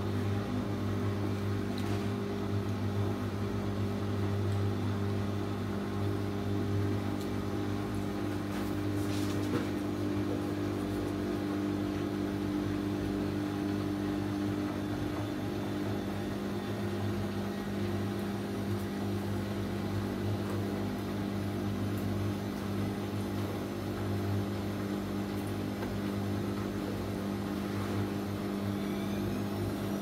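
Bosch front-loading washing machine running a wash with water in the drum: a steady motor hum over the churn of the drum, with a faint rising whine near the end as the motor picks up speed.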